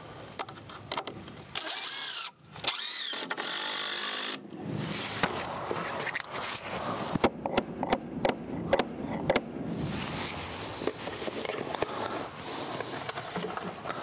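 A DeWalt cordless drill/driver runs in short bursts with a whine that rises and falls as the trigger is worked, driving fasteners into wooden trim boards. It is followed by a row of sharp knocks against the wood.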